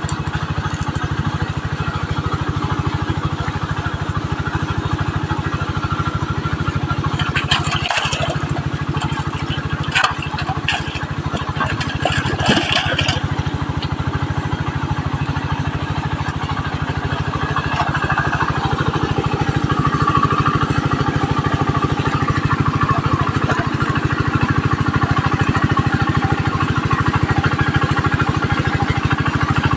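A small engine running steadily with an even low pulse, with a few short knocks about eight to thirteen seconds in.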